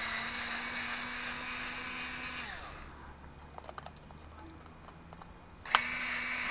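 Steady mechanical hum from a small electric motor, which winds down and fades after about two and a half seconds. A few light clicks follow, then a sharp click near the end as the hum starts again at full level.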